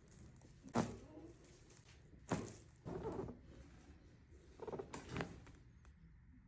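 Several short, soft knocks and thuds, about five spread out, with light rustling between them: hands and bodies moving against a chiropractic treatment table.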